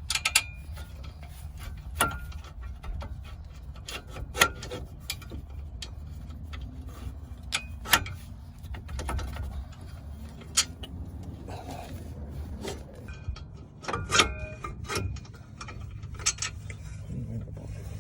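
Scattered sharp metal clicks and clinks of bolts and tools being handled while the brake caliper is fitted back onto the knuckle and its bolts are started, over a steady low hum.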